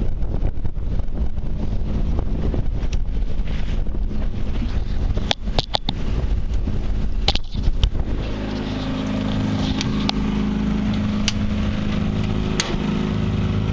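Boat engine running under wind noise on the microphone, with a few sharp clicks and knocks about halfway through. After that the engine settles into a steady hum.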